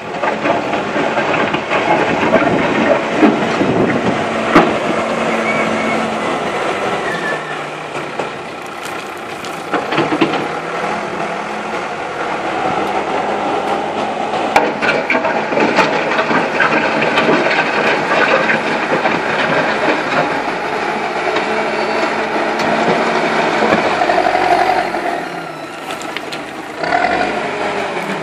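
JCB backhoe loader's diesel engine running under load, its note rising and falling as the machine pushes and scoops soil with its front bucket, with occasional sharp metallic clanks.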